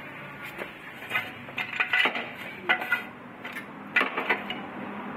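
Steel jack stand being set under the car: a series of separate metallic clinks and clanks as its post and saddle are adjusted, over a faint steady hum.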